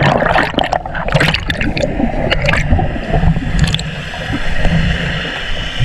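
Water churning and gurgling around a GoPro while its wearer swims, with repeated splashing strokes.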